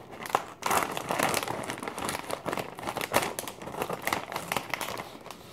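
Plastic potato-chip bag of Lay's Wavy chips crinkling and crackling as it is cut open with scissors and pulled apart by hand: a dense, irregular run of crackles.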